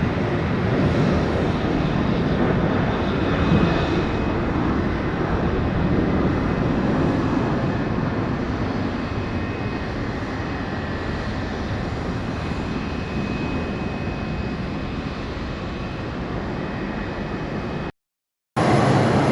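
Aircraft engine noise, a steady rush with a faint thin whine, slowly easing off. It cuts off suddenly near the end, and a loud low hum starts a moment later.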